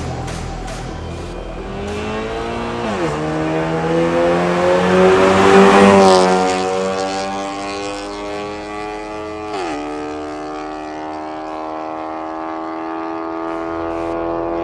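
Honda Civic 1.8-litre four-cylinder with an aftermarket MS-R valved full exhaust, accelerating hard. The exhaust note climbs in pitch and drops suddenly at two upshifts, about three seconds in and near ten seconds, and is loudest around six seconds.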